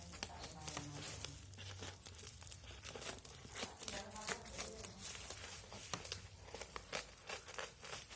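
Packaging being handled and opened: a steady run of crinkling and tearing with many small sharp crackles.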